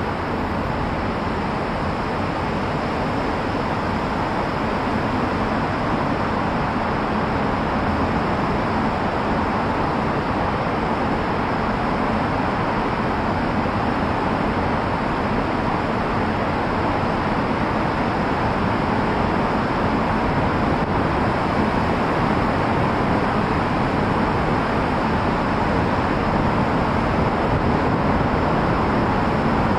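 Steady road and traffic noise of a car being driven, tyres and engine blending into an even rumble that grows slightly louder toward the end.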